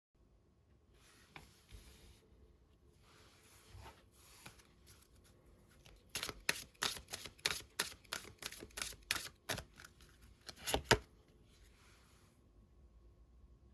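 Tarot cards being handled: a few soft sliding rustles, then a quick run of sharp card snaps and taps lasting about five seconds, the loudest near the end.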